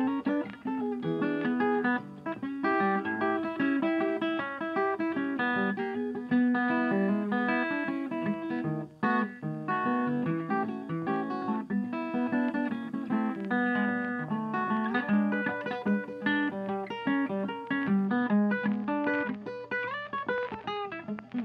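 Background music led by a plucked acoustic guitar, playing many short notes in quick succession.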